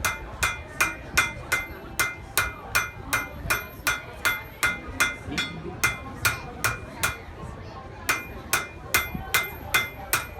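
Blacksmith's hammer striking hot iron on an anvil in a steady rhythm, about three blows a second, each with a bright metallic ring; the hammering pauses briefly about seven seconds in, then resumes.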